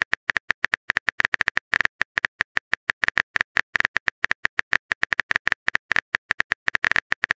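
Phone keyboard typing sound effect: a rapid, uneven run of short taps, several a second, as a text message is typed out.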